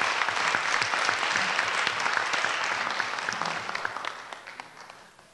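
Conference audience applauding at the end of a talk, the clapping steady at first and then fading out over the last two seconds or so.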